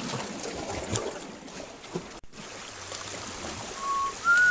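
Small waves lapping and trickling against coral rock at the water's edge, with some wind. Near the end a clear whistle starts, stepping up in pitch over a couple of notes.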